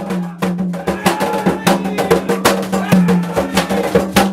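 Drumming music: atabaque hand drums struck in a quick, steady rhythm, with sharp clacking strokes over a held pitched backing.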